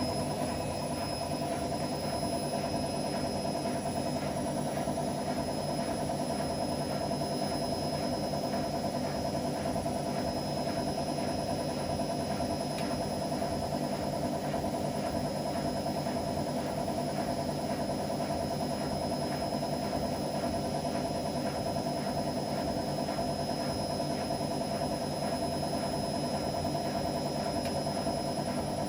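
Whirlpool AWM 864 Aquaprogramm washing machine running, its motor giving a steady hum with a thin high whine and a fast even rattle.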